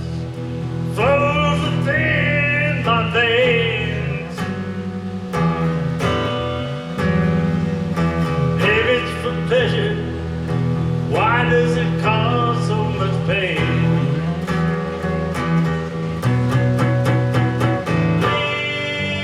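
Live country song with acoustic guitar strumming: a singer sings phrases over the guitar, with gaps where the instruments carry on alone.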